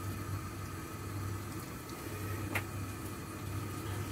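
Steady low electrical hum of a kitchen appliance, with one faint click about two and a half seconds in.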